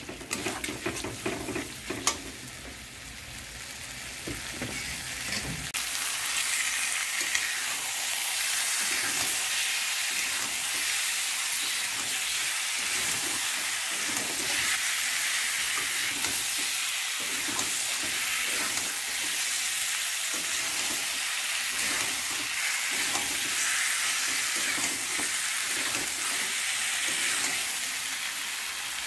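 Chicken pieces frying in oil and tomato-onion masala in a wok, stirred with a metal spatula. A few spatula knocks come first; then the sizzle swells about six seconds in and stays steady, with the spatula's stirring strokes through it.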